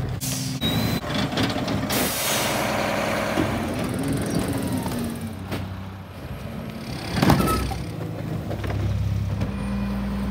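Rear-loader garbage trucks at work: diesel engines running with the hydraulic packer, a long hiss of released air about two seconds in, and a few knocks as carts are tipped into the hopper.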